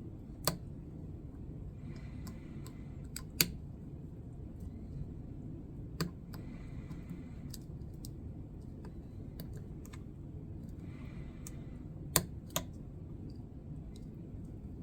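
Lock picking on a Master Lock padlock: a pick and tension wrench work the pin stack, giving a handful of sharp, irregular metallic clicks as pins set or drop, over a steady low background noise.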